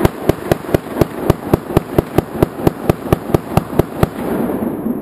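Semi-automatic rifle fired rapidly at a steady pace of about four shots a second. The shooting stops about four seconds in.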